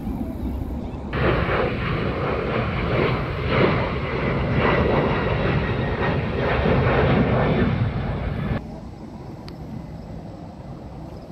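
Airplane passing overhead: a steady engine drone that comes in suddenly about a second in and cuts off suddenly a few seconds before the end, with light wind on the microphone around it.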